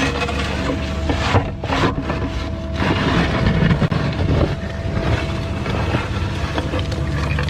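Cat mini excavator's diesel engine running steadily under digging, with a steady whining tone over it, and the bucket scraping through dirt in rough bursts during the first few seconds.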